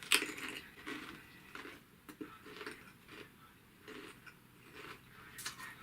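Close-up chewing of Pringles Harvest Blends multigrain crisps: a sharp bite crunch at the start, then irregular crunching as the chip is chewed, with another cluster of crunches near the end.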